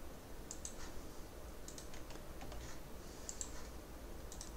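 Computer keyboard and mouse clicking: short clusters of clicks about a second apart as keys are pressed and items selected, over a faint steady low hum.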